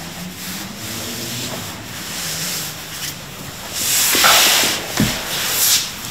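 A hand rubbing and scratching through a cat's fur close to the microphone, a soft scratchy rubbing. About four seconds in comes a louder rustle of fur and clothing as the cat is lifted, then a thump about a second later as the person sits down on the floor.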